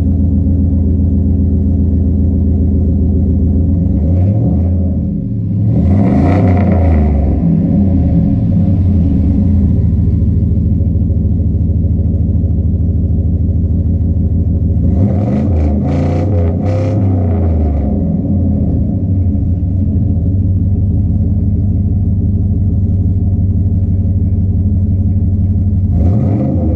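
2002 Chevy Silverado 2500HD's supercharged 6.0 V8 idling through its dual exhaust, blipped up in revs about five seconds in, again in a few quick revs around fifteen seconds in, and once more near the end.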